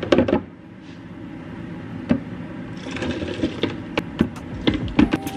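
A plastic measuring cup scooping thick, chunky chowder from a pot and tipping it into a blender jar. There are scattered knocks of the cup against the pot and the jar, and soft scraping and wet plops as the soup slides in.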